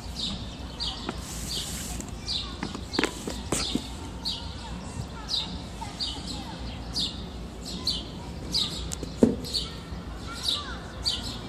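A bird chirping over and over, short high chirps about two a second. A few knocks come about three seconds in, and a louder one comes near the end.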